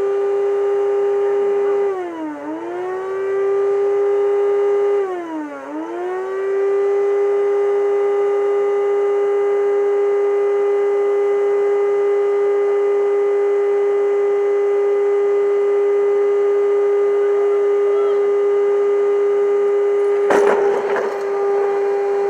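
Hoover vacuum cleaner motor running with a steady, high whine; its pitch sags and recovers twice in the first six seconds. A loud clattering hit comes near the end.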